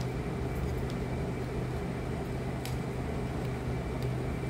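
Steady low mechanical hum of a running appliance in the room, with a faint click about halfway through.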